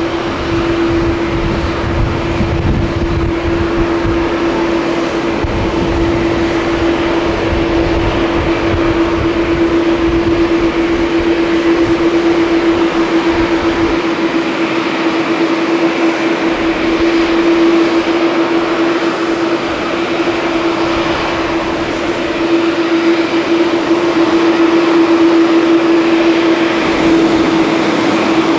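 Boeing 787-9 airliner's jet engines running at taxi power: a steady hum and hiss with one constant whine. A low rumble under it drops away about halfway through.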